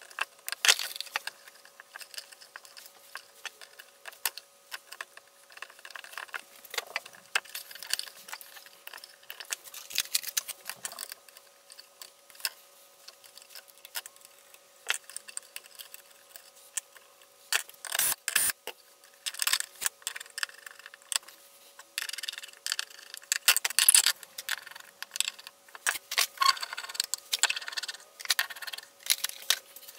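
Hand-work noises of electrical wiring on a sheet-metal panel: irregular clicks, clinks and scrapes of pliers, wires and metal junction boxes, then porcelain lamp holders and heat-lamp bulbs being set in place, with a louder knock about eighteen seconds in.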